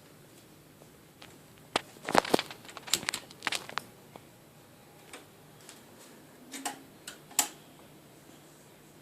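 Irregular sharp clicks and light knocks from hands handling audio equipment. There is a quick cluster about two to four seconds in and a few more near seven seconds.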